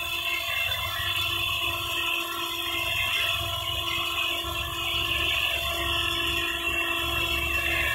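Big-gun rain gun sprinkler throwing a jet of water: a steady hiss of spray, with a steady hum and low rumble underneath.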